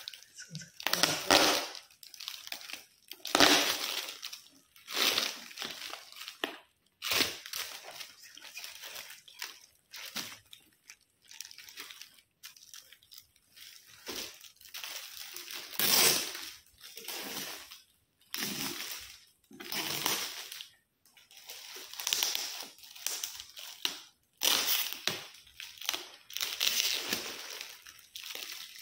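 Shiny red metallic gift wrap crinkling and crackling as it is pulled and torn open by hand, in irregular bursts that come every second or two. The crackling is very loud.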